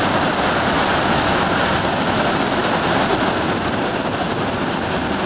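The American Falls at Niagara roaring: a loud, steady rush of heavy falling water crashing onto the rocks below.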